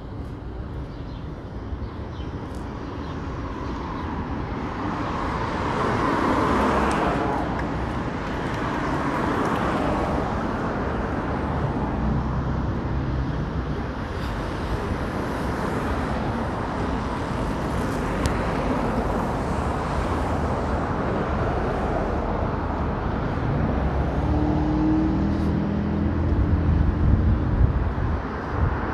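City street traffic: cars passing one after another, with a louder pass swelling about six to seven seconds in. A low, steady engine hum sits under the traffic near the end.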